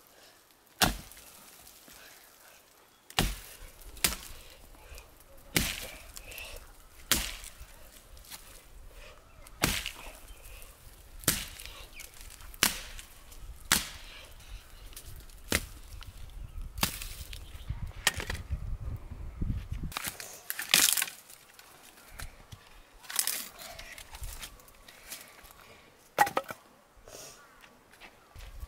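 Axe chopping into tree branches: sharp single blows of the blade into wood, roughly one every one to two seconds, with a break of a few seconds past the middle.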